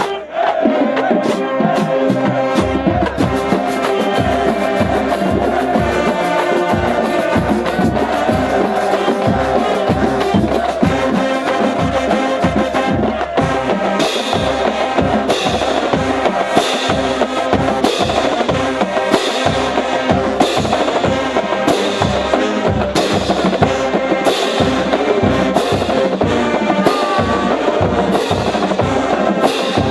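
College marching band playing: brass over a steady drum beat that comes in a few seconds in. Sharp crashing hits join the beat about halfway through.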